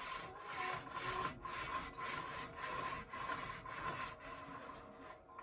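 Combination (zebra) roller blind being lowered by pulling its cord hand over hand: about ten short rubbing strokes, two a second, stopping about five seconds in.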